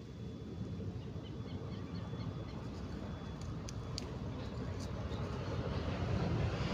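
Low rumble of an approaching vehicle, growing steadily louder.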